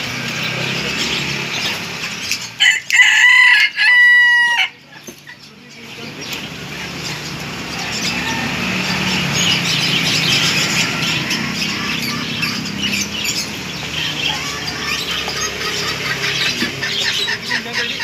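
A rooster crows once, loudly, about three seconds in, the call held under two seconds, followed by a steady, busy background noise.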